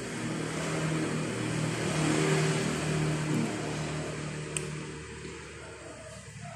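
A motor vehicle passing by: engine and road noise swell to a peak about two seconds in, then fade away.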